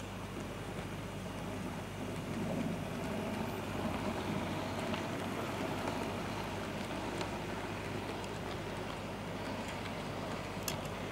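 Model train running past: the Heljan Class 58 OO-gauge diesel's motor whirs and a long rake of open wagons rolls by, wheels rumbling over the track, over a steady low hum. The rumble swells about two seconds in and holds, with a sharper click near the end.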